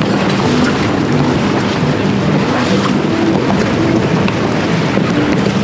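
Strong wind blowing across a sailboat at anchor and buffeting the microphone, over choppy water. The wind is a loud, steady rush, with short low tones coming and going.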